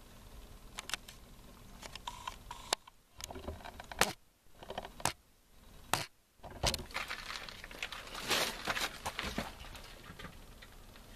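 Handling noise: scattered sharp clicks and taps, with a rustle about eight seconds in, as the new plastic valve module and its O-ring are handled.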